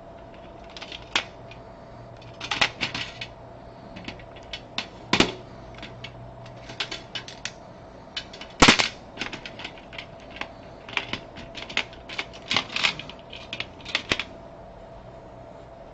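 Computer keyboard typing: irregular runs of keystrokes with short pauses between them. A faint steady hum runs behind.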